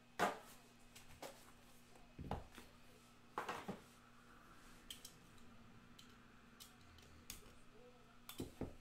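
Scattered light clicks, taps and knocks as a cardboard trading-card box and a clear plastic card case are handled and set down on a tabletop.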